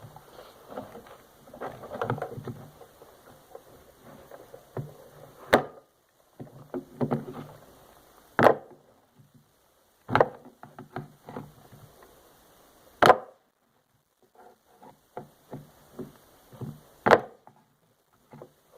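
A TV remote being forced apart with a tool: plastic clattering and scraping, broken by about five sharp, loud knocks a few seconds apart.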